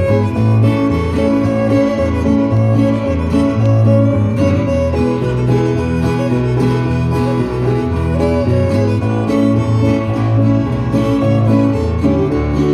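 Live fiddle tune: a fiddle playing the melody over strummed acoustic guitar, with a steady bass line underneath.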